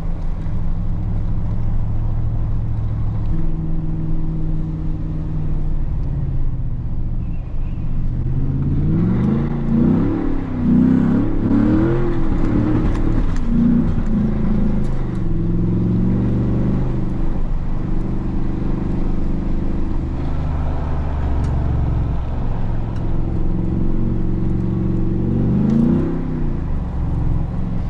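2014 Ford Raptor SVT's 6.2-litre V8 running under way. The engine note is mostly steady, with a run of quick revs rising and falling in pitch about nine to fourteen seconds in, and another rev near the end.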